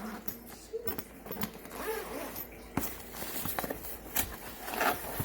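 Scattered clicks, knocks and rustling as a ring light's stand and packaging are handled and set up.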